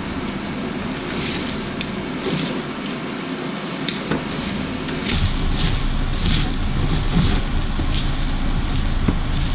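Beaten eggs and fried rice sizzling in a hot pan, a steady crackling hiss that flares up now and then; a low rumble comes in about halfway.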